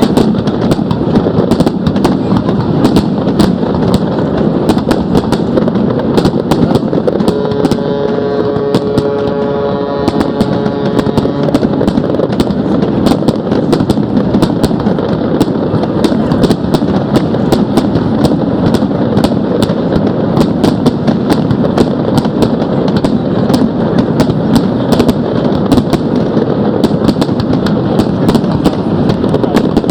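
Fireworks going off without let-up: a dense, loud crackle of many small reports over a continuous rumble of bursts. About seven seconds in, a held pitched tone with overtones sounds for around four seconds.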